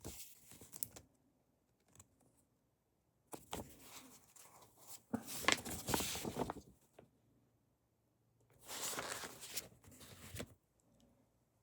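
Comic books being handled and shuffled, with a crinkly rustling in three stretches.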